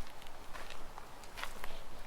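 Footsteps of a person walking, a series of short, irregular steps.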